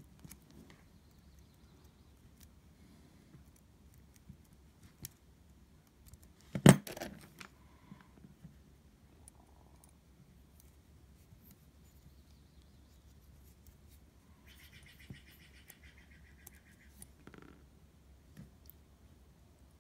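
Quiet handling noise: small clicks and taps of needle-nose pliers and a small butane torch's metal head as a thin wire is worked into a hole, with one sharp knock about seven seconds in.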